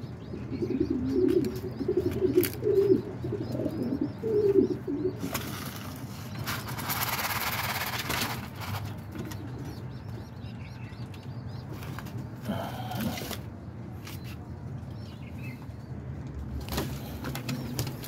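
Domestic pigeon cooing repeatedly through the first few seconds. After that comes a few seconds of rushing noise.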